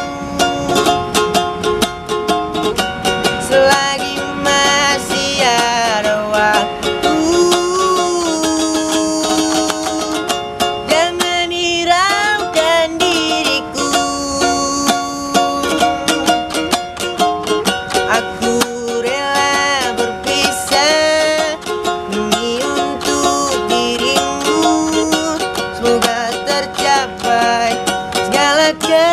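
A teenage boy singing a slow pop ballad, holding long notes with vibrato, accompanied by his own steadily strummed ukulele.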